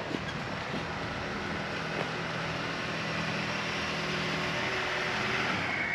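Car engine running at low speed, growing gradually louder as it comes closer.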